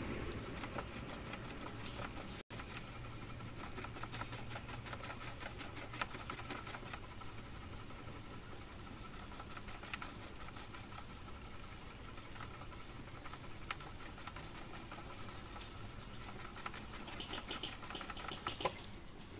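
Hand wet-sanding a car's clear coat with sandpaper on a small block, in quick back-and-forth strokes that make a steady rhythmic scratching. The sanding is levelling a run (sag) in the clear coat down flush with the surrounding finish.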